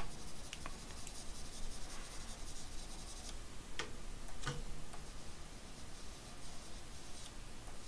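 Light scratching and a few scattered sharp clicks from a computer pointing device worked by hand at a desk, during clone-stamp retouching in Photoshop.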